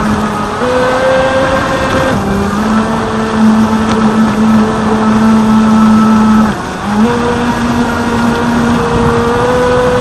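Water-cooled 3660 brushless inrunner motor driving the KMB Jet 28 jet pump of a radio-controlled jet ski, whining steadily under throttle. The pitch steps up and down a little as the throttle changes, and it drops out briefly about six and a half seconds in before picking back up.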